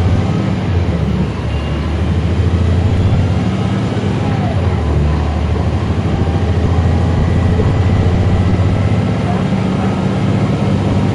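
Caterpillar C13 ACERT diesel engine of a NABI 40-foot transit bus running, heard from on board. It is a deep, loud drone whose pitch shifts a few times, dipping about a second in and rising again around the middle.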